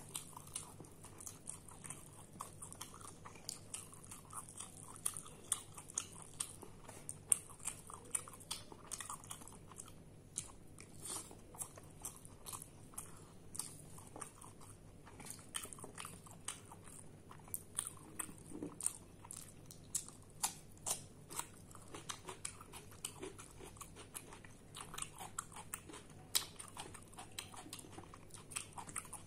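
A person chewing rice and curry, with many small, sharp mouth clicks and smacks, several a second.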